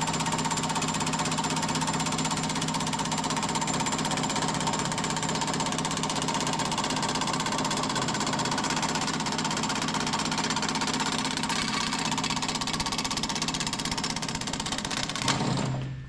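Power hammer running continuously, its ram beating sheet metal in a fast, even hammering over a steady motor hum. It winds down and stops just before the end.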